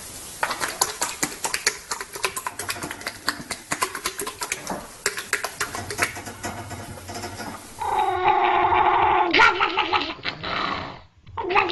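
A dog's vocalising: a rasping, clicking growl, then from about eight seconds in loud, drawn-out wavering whines.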